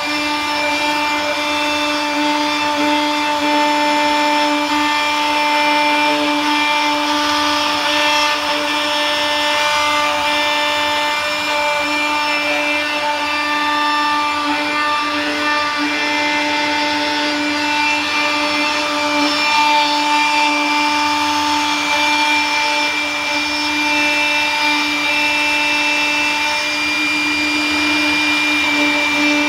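Houf Robotic CNC router milling black plastic sheet with an end mill: a steady spindle whine of several held tones over the rasp of the cutter chipping the plastic.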